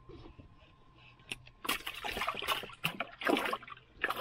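Water splashing and sloshing in an ice-fishing hole as a walleye is pulled up through it. There are a few short splashes, starting about halfway in.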